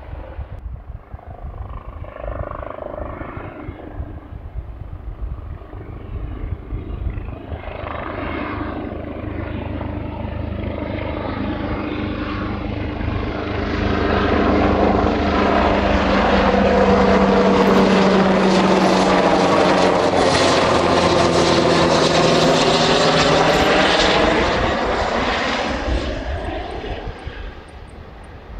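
Large twin-turbine Super Puma-type helicopter flying past. Its turbine and rotor noise builds over the first half, is loudest for about ten seconds in the middle, and fades near the end, with its tones bending in pitch as it passes.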